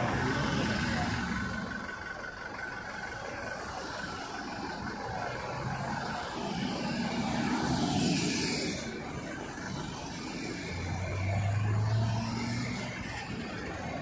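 Cars and SUVs driving past one after another on a road, with engine and tyre noise. The sound swells as a vehicle goes by about eight seconds in and again around twelve seconds, with a low engine hum in the second pass.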